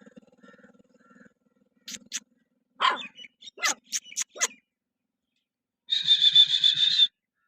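Stray dogs in a fight barking and yelping in short, sharp calls, then one high-pitched pulsing cry lasting about a second. A motor hum fades out in the first second.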